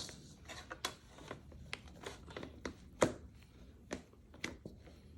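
Irregular soft clicks and taps, with one sharper knock about three seconds in, from hands working a stiff noodle dough in a bowl.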